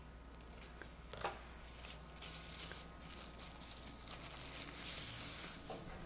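Faint rustling and crinkling of thin plastic film as it is peeled off a sheet of rolled cookie dough, in short scattered rustles.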